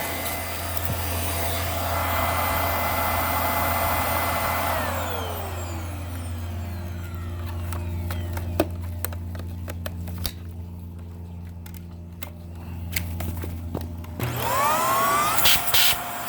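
Hoover Air vacuum cleaner's motor running steadily, then winding down with a falling whine about five seconds in, a few clicks, and spinning back up with a rising whine near the end. It is a suction check on a machine that has lost nearly all of its suction power.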